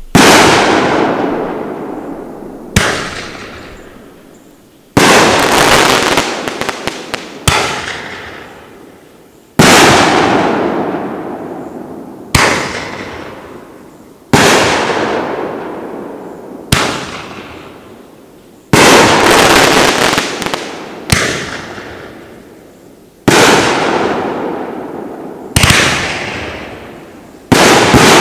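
Great Grizzly Bombardier 500-gram firework cake firing aerial shells: a sharp bang about every two seconds, each fading away in a long echo, with crackling after some of the bursts.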